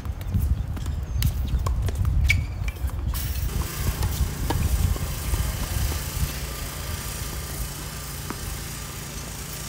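Wind rumbling unevenly on the phone's microphone on an open tennis court, with a few sharp knocks of a tennis ball struck by rackets and bouncing in the first few seconds; a steady hiss joins about three seconds in.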